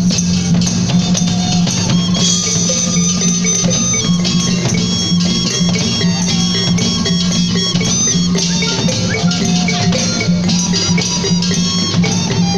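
Sabahan gong music: a row of kulintangan kettle gongs struck in quick patterns over drum and gongs, blended with electric guitar and keyboard in a steady rhythm.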